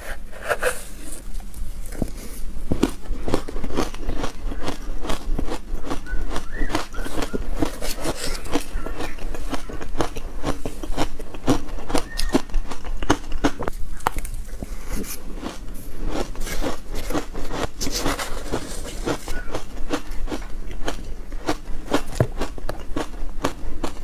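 Dense reshaped ice dusted with milk powder being bitten and chewed: rapid, irregular crisp crunches and cracks, many a second, keeping on without a break.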